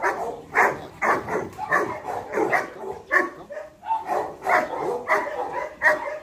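A large dog barking repeatedly and fast, about two barks a second.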